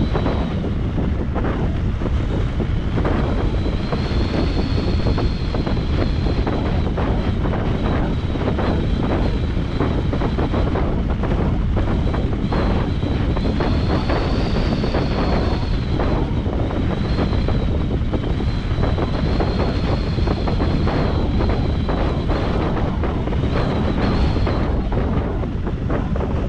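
Airflow buffeting the microphone during a paraglider flight, a steady loud rushing rumble. A faint high thin tone runs through it, rising slightly and falling back a few times.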